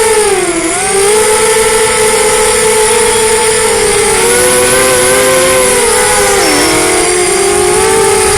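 The brushless motors and 5045 bullnose props of a HeliPal Storm SRD250 Pro FPV racing quadcopter on 4S whine steadily in flight. The pitch dips briefly about half a second in and again near the end as the throttle is eased. In between, several close pitches wobble apart as the motors run at different speeds to hold the quad steady.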